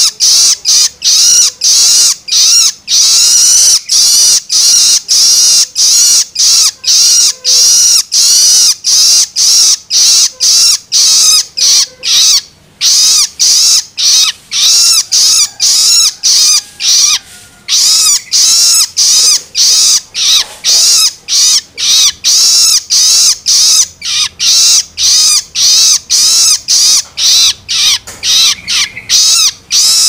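Young long-tailed shrike (cendet) giving its begging 'loloan' call: loud, high-pitched calls repeated quickly, about two to three a second, with a couple of brief pauses midway.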